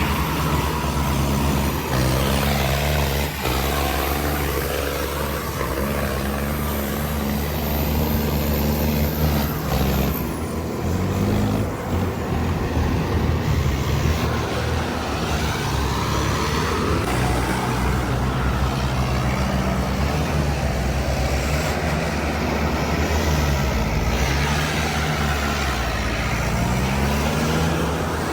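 Heavy diesel engine running hard, its pitch stepping up and down as the throttle changes, with a dip about three-quarters of the way through and a rise near the end.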